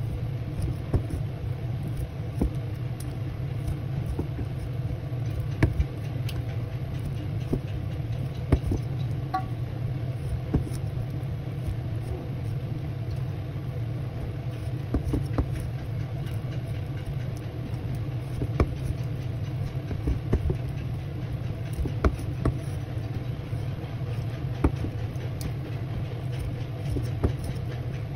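A cleaver chopping raw chicken wings on a wooden cutting board, with sharp, irregular knocks about every second or two over a steady low hum.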